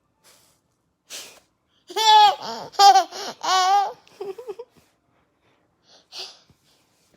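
A toddler laughing in a run of high-pitched giggles from about two seconds in, with a sharp breath before it and another near the end.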